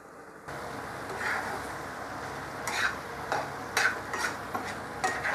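Chicken masala sizzling in a pan, starting suddenly about half a second in, with a spoon stirring and scraping against the pan several times.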